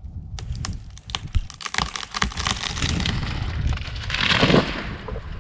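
A tree falling: many sharp cracks and snaps of splitting wood and breaking branches, then the loud crash of the crown hitting the ground about four seconds in.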